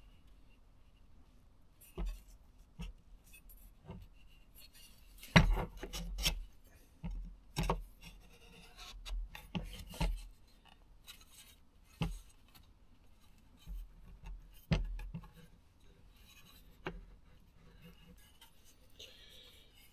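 Steel chopper blade and wooden hatchet handle knocking and scraping together as the blade is worked in and out of its cut slot to test the fit: a string of irregular sharp knocks with faint rubbing between them.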